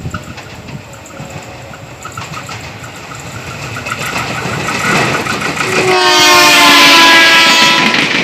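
Tokyo Metro 6000-series electric commuter train approaching and passing close by, its running noise growing steadily louder. About six seconds in it sounds its horn, a blast of under two seconds whose pitch drops as the train goes by.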